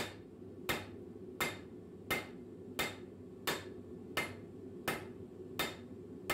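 Hammer blows on a red-hot square steel bar laid on a railway-rail anvil: about nine sharp, evenly spaced strikes, roughly one every 0.7 s, flattening the heated end into a goose-foot scroll.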